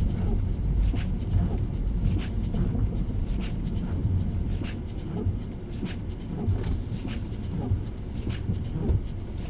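Car running with a steady low rumble, with scattered light clicks and knocks.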